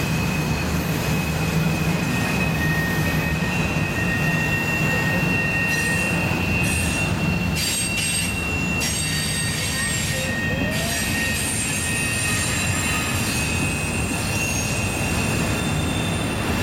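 Double-stack intermodal freight train rolling past, its wheels squealing against the rail on a tight curve. The squeal is a high, thin, steady tone that drops out briefly near the middle, with a second, lower squeal joining at times over the steady rumble of the passing cars.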